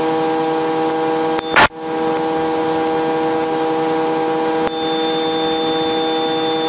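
Helicopter cabin noise: a steady whine made of several even tones over hiss. A short crackling burst breaks it about a second and a half in, and a thin high tone joins it near the middle.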